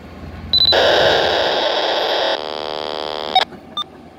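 Railroad scanner radio: a short beep, then a loud burst of static for about a second and a half, followed by a buzzing data tone that cuts off suddenly with a click and a couple of short beeps.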